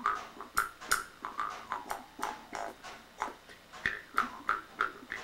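Amis mouth harp (bamboo-framed jaw harp) played by jerking its cord: a quick run of twanging plucks, about three a second, each ringing briefly while the mouth shifts the sounding overtone up and down.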